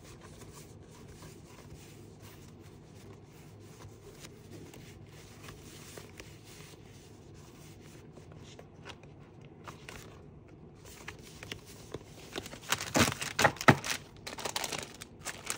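Craft supplies and their packaging being handled and shuffled: faint rustling for most of the time, then louder crinkling of packaging for a couple of seconds near the end.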